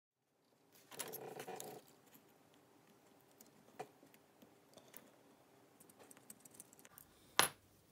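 Small hand-turned pin-vise drill with a fine twist bit boring a hole by hand: faint scattered scratching and ticking clicks. A short metallic handling rattle comes about a second in, and a single sharp click near the end.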